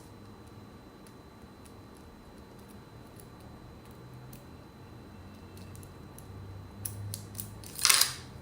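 Small metal parts of a sewing-machine zigzag attachment and a screwdriver being handled while the foot lever is unscrewed and swapped: faint scattered clicks, a few sharper clicks near the end, then one short, louder metallic rattle.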